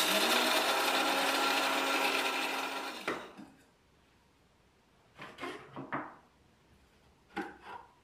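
De'Longhi espresso machine's pump running loudly for about three seconds with a steady buzz and hiss, then cutting off. A few short clinks and knocks follow as the machine's parts and a glass are handled.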